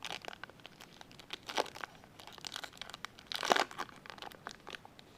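A trading card pack's wrapper crinkling and tearing as it is opened by hand, an irregular run of crackles with two louder rips about one and a half and three and a half seconds in.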